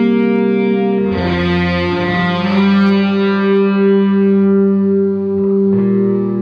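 Instrumental music with held, effected guitar chords. The chord changes about a second in and again near the end.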